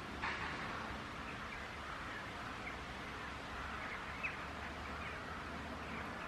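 Steady outdoor background hiss with a few short bird chirps scattered through, and a brief noisy burst just after the start.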